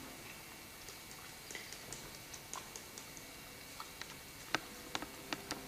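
Irregular small clicks and ticks over a faint steady hiss, coming more often and sharper in the last second or so.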